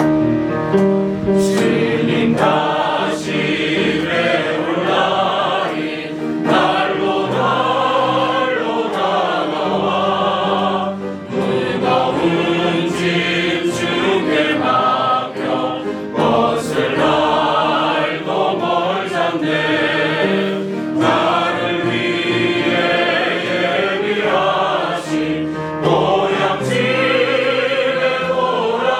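A church choir singing a hymn in Korean with instrumental accompaniment, in continuous sung phrases.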